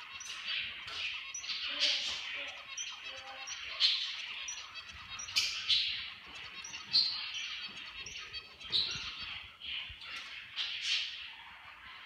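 Small caged pet birds chirping: a busy run of short, high, sharp chirps and tweets, about two a second, some sliding quickly up or down in pitch.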